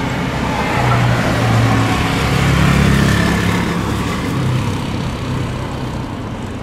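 The two Rolls-Royce Trent 7000 jet engines of an Airbus A330-900 at takeoff thrust during the takeoff roll, heard from a distance as a steady rumbling rush with a low hum. The sound swells to its loudest about halfway through, then slowly eases.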